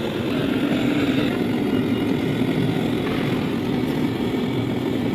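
Steady engine noise running without a break, with no distinct knocks or clicks.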